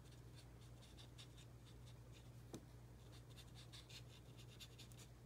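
Faint scratching of a Stampin' Blends alcohol marker tip on cardstock in many short, repeated strokes, shading a stamped peony with dark pink. A low steady hum runs underneath, with one small click about halfway through.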